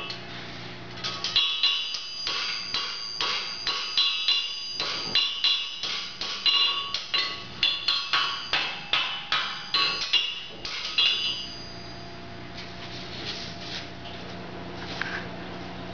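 Farrier's hammer striking a steel horseshoe on an anvil, a run of ringing metal blows at about two to three a second as the shoe is shaped over the anvil horn. The blows stop about eleven seconds in, leaving a faint steady hum.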